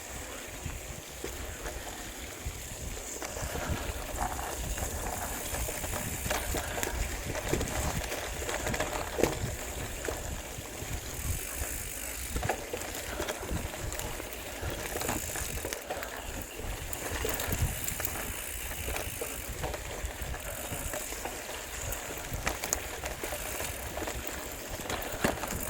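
Mountain bike being ridden along a dirt trail: tyre and drivetrain noise with scattered clicks and rattles from the bike, over a steady low rumble of wind on the microphone.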